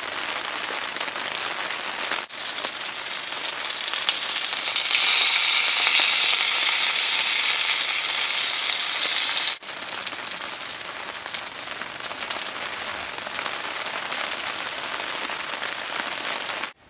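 Steady hiss of rain falling. In a middle stretch, between two abrupt cuts, a louder high hiss of food sizzling in a frying pan takes over, strongest in its second half.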